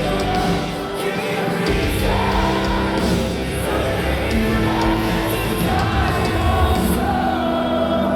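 Live rock band playing with a lead vocal singing long held notes over full guitars and drums, heard through the reverberation of a large hall.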